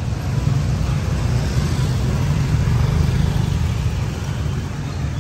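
Street traffic with a motor vehicle's engine rumbling close by, a little louder in the middle.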